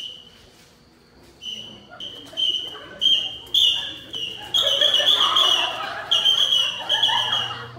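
A whistle blown in a run of short, rhythmic toots that become longer blasts in the second half, with voices of a young audience rising underneath.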